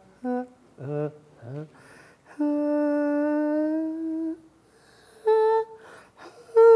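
A man singing a cappella on a vowel: a few short syllables, then a long steady held note of about two seconds, then two higher notes near the end. He is showing where his voice turns hoarse, which he describes as two tones sounding at once.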